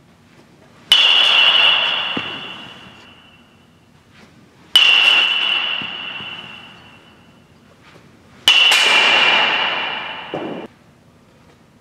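Metal baseball bat hitting pitched balls three times, roughly four seconds apart, each a sharp ping that rings and fades over a second or two; the third ring cuts off suddenly.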